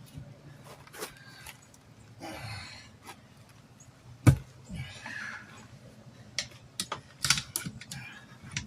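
Tire spoons clicking and scraping against a wheel rim while prying a tire bead off, with scattered clicks and one sharp knock about four seconds in.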